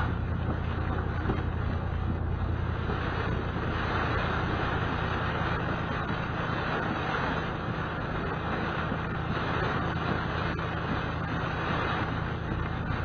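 Steady driving noise inside a moving vehicle's cabin: a low rumble of engine and tyres on the road, with a hiss that swells and eases every few seconds.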